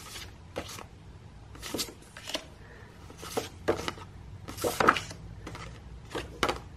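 Sheets of double-sided patterned craft paper being handled and turned over: a string of short papery rustles and flaps at irregular intervals, the loudest about five seconds in.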